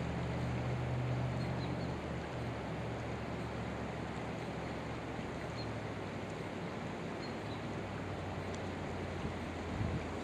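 Steady rush of a flowing creek and wind on the microphone, with a low steady hum that is strongest in the first couple of seconds and a few faint high chirps.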